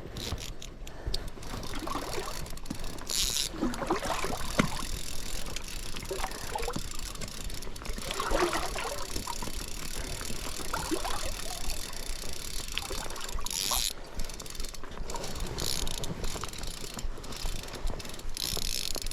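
River water lapping and gurgling around an inflatable one-person raft as it drifts, with a few short hissing swishes.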